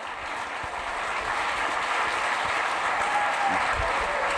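Theatre audience applauding, the clapping building up over the first second or so and then holding steady.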